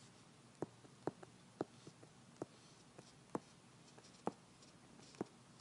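A stylus writing on a tablet's glass screen: faint, short, irregular clicks, about nine, as the tip touches down for each pen stroke.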